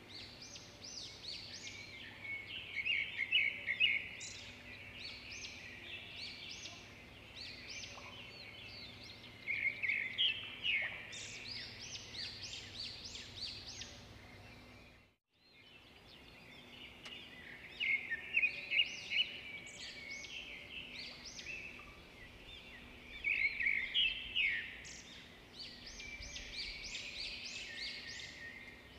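Metal spoon beating coffee, sugar and water in a mug, clinking rapidly against the sides in bouts of a few seconds with quieter stretches between.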